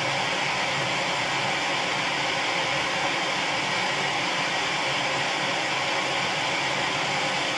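Steady, even hiss of a gas torch burning, heating the hub on the half shaft to loosen it.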